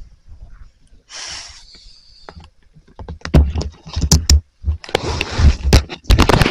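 Irregular rustling, knocks and deep thumps on the microphone as the handheld camera is moved about, loudest and most frequent in the second half.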